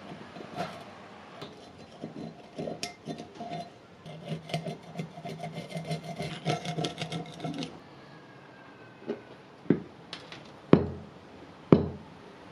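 A steel flat-blade screwdriver scraping and picking thick, flaking rust off an antique wrench, a run of scratchy scrapes and small ticks as rust chips break away. About nine seconds in this stops and four sharp knocks follow, the last two the loudest.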